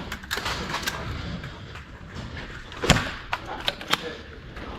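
Scattered sharp knocks and clacks: a few near the start, the loudest about three seconds in, then three more close together just after.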